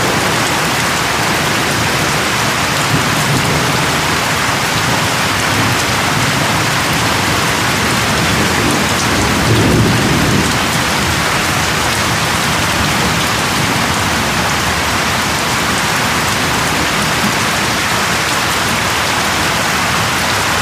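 Steady heavy rain falling and pattering on surfaces, with a brief low rumble of thunder about halfway through.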